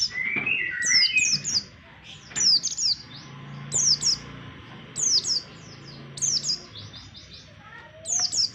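White-eye (pleci) song used as a bird lure: repeated short phrases of three or four high, quick, falling chirps, about one phrase every second or so, with a few lower chirps near the end.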